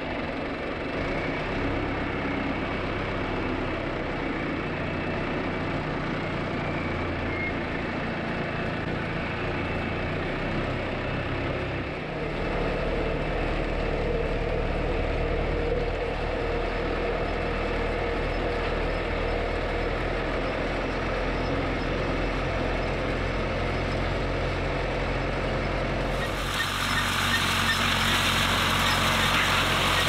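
John Deere 2750's four-cylinder diesel engine running steadily while the tractor pulls a wheel hay rake, heard up close from on the tractor. About twelve seconds in the engine note shifts lower, and near the end a steady hiss joins the engine sound.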